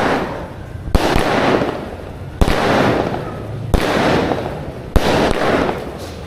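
A 36-shot fireworks cake, GLK Fireworks' Night Breaker, firing shot after shot: four sharp bangs about every second and a half, each trailed by about a second of crackling that dies away.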